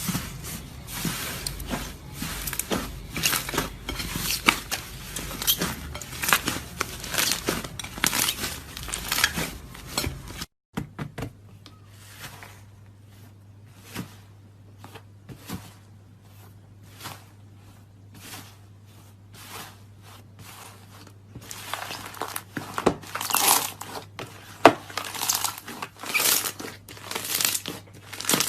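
Crunchy slime squeezed and pressed by hand, giving a dense run of crackles and pops. After an abrupt cut about ten seconds in, only scattered clicks come through over a steady low hum, and the dense crackling picks up again near the end.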